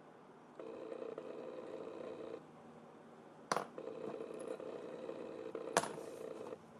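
A small electric device hums steadily, switching on for a couple of seconds, off, then on again for about three seconds, with two sharp clicks in between.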